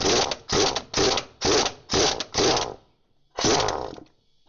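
Impact wrench on a socket extension hammering at bolts in short trigger bursts: six quick bursts in a row, then one more after a pause near the end.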